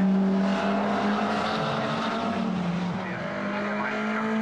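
Classic Alfa Romeo racing coupe's engine running hard on the circuit; the engine note holds high, falls away about halfway through, then climbs again near the end as the car accelerates.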